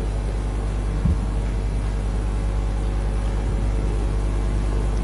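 Steady low rumble and hum of a large hall's room tone picked up by the chamber's microphones, with a soft knock about a second in.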